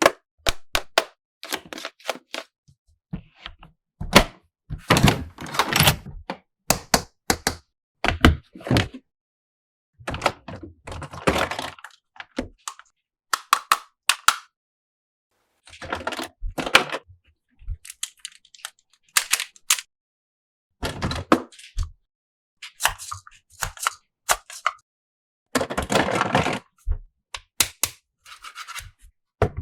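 Toy playset pieces and their packaging being handled and unboxed: an irregular run of sharp clicks, knocks and short scraping rustles, in clusters with brief pauses between.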